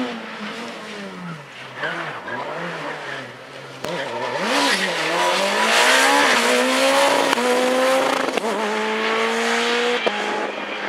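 Peugeot 207 S2000 rally car's engine, first further off with revs rising and falling, then passing close about four seconds in with a rush of tyre noise. It then accelerates away through the gears, its revs climbing in each gear and dropping back at several quick upshifts.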